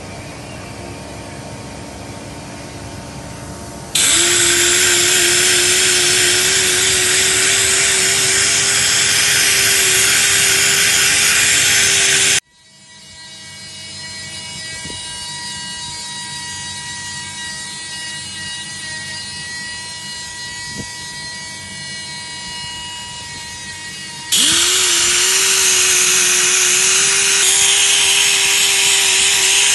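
Handheld powered polishing tool running against a steel mold cavity: a loud, steady hiss with a motor tone. It starts about four seconds in, cuts off abruptly after about eight seconds, and after a quieter stretch of steady hum starts again near the end, its pitch rising as it comes up to speed.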